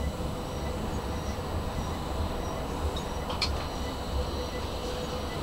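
Tram running slowly on street track, heard from inside at the front: a steady low rumble with a few faint high ticks and a brief squeak about three and a half seconds in.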